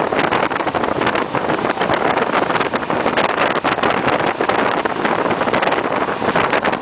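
Passenger train running along the line: a loud, steady rushing noise with quick clattering throughout, mixed with wind blowing on the microphone.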